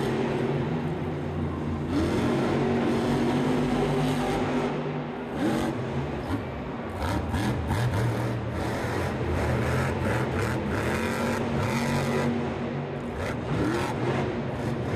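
Monster truck supercharged V8 engines running hard, revs rising and falling several times.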